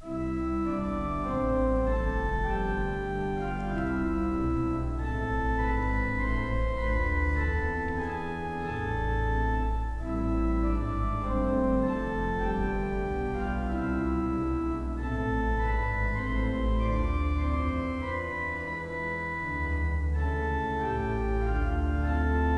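Organ playing slow, sustained chords over a deep held bass line, the chords changing every second or two.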